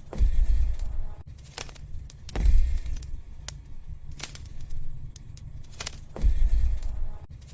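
Wood fire crackling in a fireplace: scattered sharp pops from the burning logs over a soft hiss, with a low rumble of the flames swelling three times.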